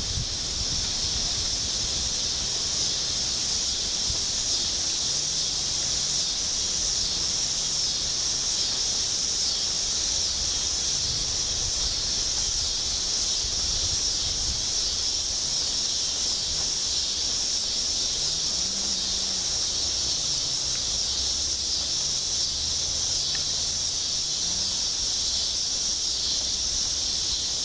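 Storm noise: a steady hiss of rain with wind buffeting the microphone, no thunderclaps.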